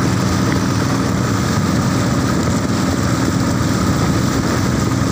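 A motorboat's engine running steadily at an even pitch.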